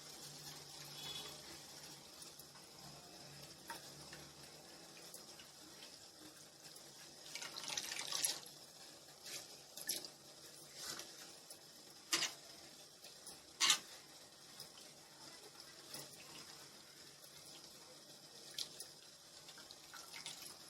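Water dripping and splashing faintly as grated potato is squeezed out by hand over a bowl, with a few brief splashes scattered through.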